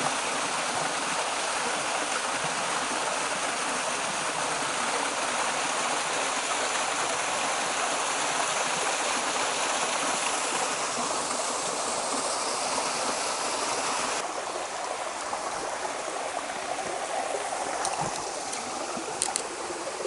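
Waterfall splashing into its pool: a steady rush of falling water, turning a little quieter and duller about fourteen seconds in.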